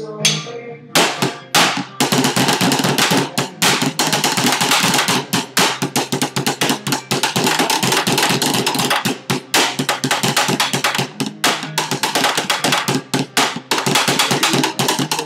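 Drum kit played loudly: a few separate hits, then from about two seconds in a fast, dense beat of rapid strokes.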